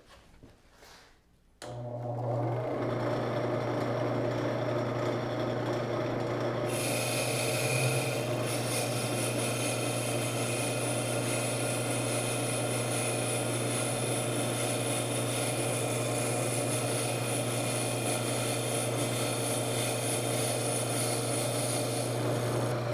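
Homemade wood lathe's motor starts about one and a half seconds in and runs steadily with a low hum. About seven seconds in, a higher hiss joins as the cutting tool takes a light finishing cut on the outside of a wooden banjo rim. Both stop right at the end.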